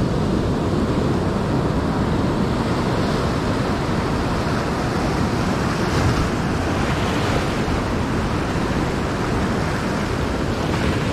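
Ocean surf breaking and washing over shore rocks: a steady rush that swells as waves break, with wind rumbling on the microphone.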